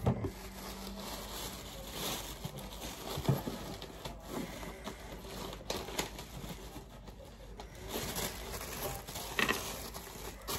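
Black tissue paper rustling and crinkling as it is handled and lifted inside a cardboard box, with a few light knocks.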